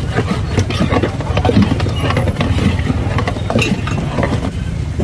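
Metal ladle churning falsa berries and ice in a steel bowl: repeated clinks, knocks and scraping against the metal, with sloshing. A steady low engine-like rumble runs underneath.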